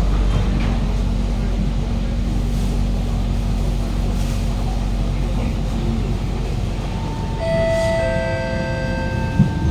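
Steady low hum and rumble inside a Kawasaki Heavy Industries C151 metro car. About seven seconds in, a chime of several held tones comes in one note after another, and there is a short thump near the end.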